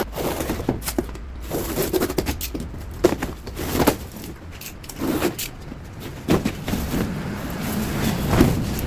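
Irregular knocks, clicks and scraping over a low steady hum.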